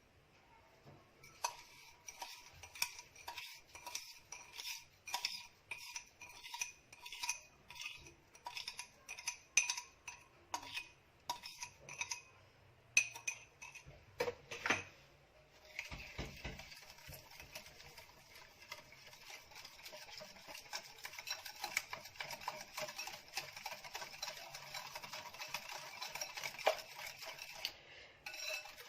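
Eggs and granulated sugar being beaten by hand in a bowl, the utensil clinking against the bowl. For the first half the strokes come separately, about two a second; from about halfway the beating turns quicker and continuous.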